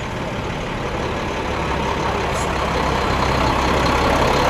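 A motor vehicle's engine running with a steady low hum, growing slowly louder.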